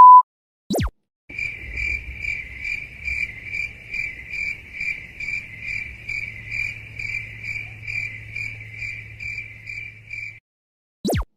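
Cricket-chirping sound effect: a high, pulsing chirp repeating about three times a second for roughly nine seconds over a faint low hum. A quick downward zap comes just before it starts and another near the end.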